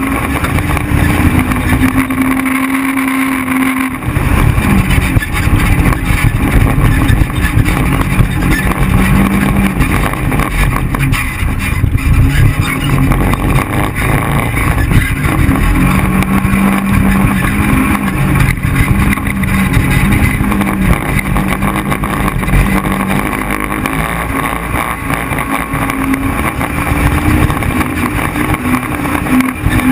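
Side-by-side UTV engine running hard on sand, its pitch rising and falling with the throttle, under heavy wind noise on an onboard camera microphone.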